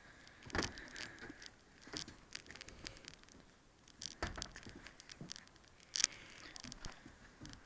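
Scattered light taps, clicks and rustles of handling, with a sharper click about six seconds in.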